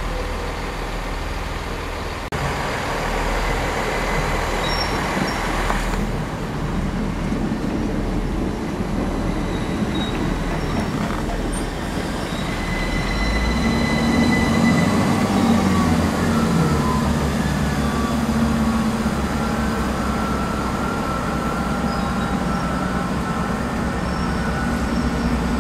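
Electric passenger train running along a station platform close by: a steady rumble of wheels on rail. From about halfway in, several steady whining tones from its traction equipment come in above the rumble.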